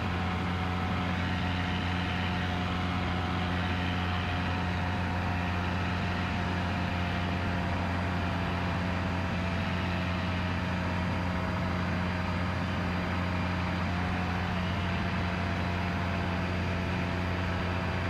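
Cessna 177RG Cardinal's 200 hp Lycoming IO-360 four-cylinder engine and propeller droning steadily at full climb power. A thin steady whine sits above the drone while the retractable landing gear's hydraulic pump runs to raise the gear.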